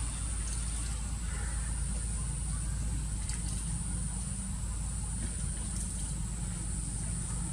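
Steady outdoor background noise: a low rumble with a constant high-pitched hiss and a few faint ticks.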